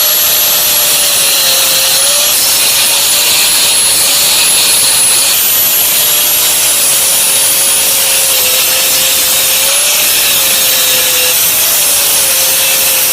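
Electric grinder running continuously against thick steel, grinding down the bulge on the inside corner of a 90-degree bend so a reinforcing plate will sit flush. It makes a steady motor whine whose pitch wavers slightly as it bears on the metal, over a loud grinding hiss.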